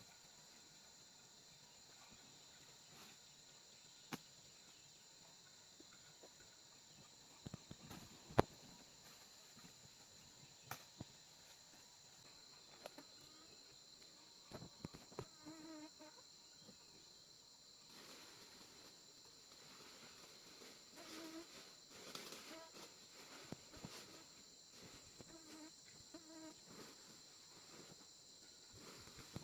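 A steady, faint high-pitched chorus of forest insects trilling, with a few sharp clicks or knocks scattered through it (the loudest about eight seconds in) and faint short low calls repeating in the second half.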